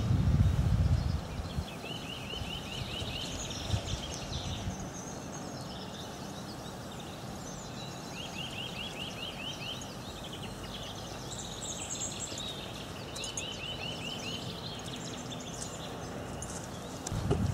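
Small birds singing outdoors: repeated rapid trills of short high notes every few seconds, with other higher calls between, over a steady outdoor hiss. A low rumble, wind on the microphone, dies away in the first second.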